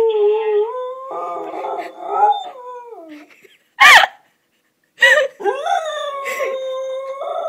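Dog howling in long, slowly rising notes at a voice coming from a phone held near it. A sharp, loud sound about four seconds in breaks the howling, then about a second of silence, and then the dog starts another long howl.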